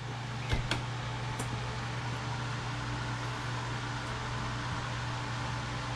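Steady low mechanical hum with an even hiss, unchanging throughout; a few faint clicks in the first second and a half.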